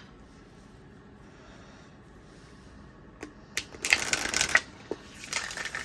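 A deck of Moonology oracle cards being cut and shuffled by hand: a couple of light taps, then two short bursts of shuffling card noise about a second apart in the second half.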